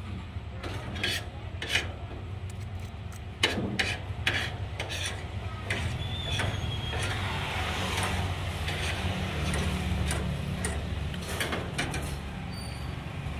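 Metal spoon and fork clinking and scraping against a dinner plate as the last rice is gathered up, a scattered run of short sharp clicks over a steady low background hum.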